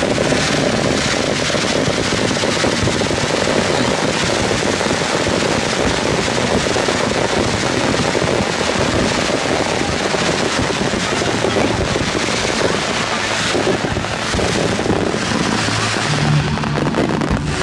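A dense barrage of fireworks shells bursting and crackling in rapid succession, a continuous rattle of reports. Music comes through near the end.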